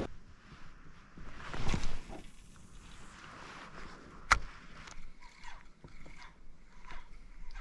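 A fishing cast with a spinning rod and reel: a swish of the cast about two seconds in, then a sharp click of the reel's bail a little after four seconds, followed by a run of small, evenly spaced ticks as the reel is cranked.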